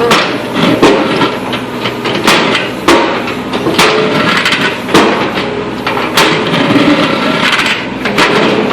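Excavator bucket biting into and breaking up asphalt: irregular sharp knocks and cracks about once a second over the excavator's steady engine noise.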